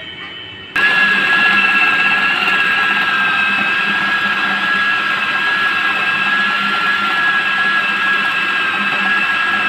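Electric food processor motor grinding raw chicken mince with spices and herbs into a kebab paste. It switches on suddenly just under a second in and then runs at a steady speed with an even whine.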